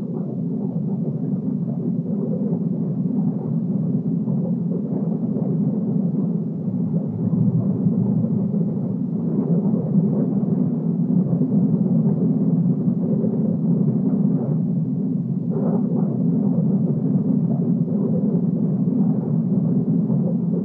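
Jet aircraft in flight, an A-4 Skyhawk: a steady, deep rumble of jet noise with no change in pitch.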